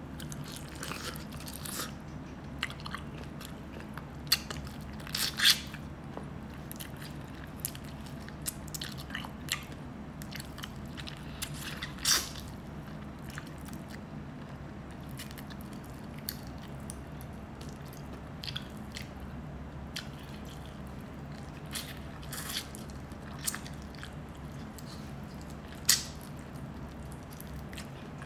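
Close-miked chewing and biting of chicken feet, with scattered sharp crunches and mouth clicks, the loudest about 5, 12 and 26 seconds in, over a steady low hum.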